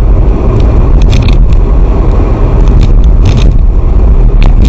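Car on the move, heard from inside the cabin: a steady, loud low rumble of road and engine noise, with a few brief crackles scattered through it.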